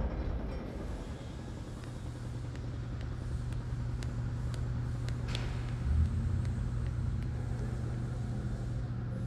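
Steady low ambient hum, like distant traffic, with a few faint ticks and a short high chirp about five seconds in.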